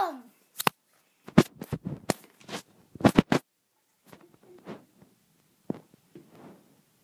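A run of short, sharp knocks and scrapes, several close together in the first three and a half seconds, then fainter taps and rustles.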